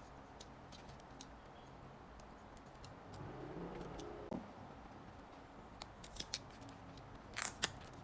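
Scattered small, sharp clicks and taps, with a louder quick double click near the end.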